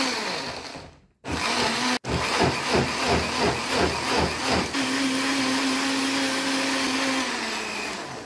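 Countertop blender running, chopping pandan leaves in water into a purée. The motor's pitch wavers over and over as leaf pieces hit the blades, then settles into a steady hum as the mix turns smooth, and it winds down near the end. The sound breaks off briefly twice in the first two seconds.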